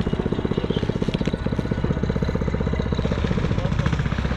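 A small single-cylinder-type engine running steadily, with a rapid, even firing beat.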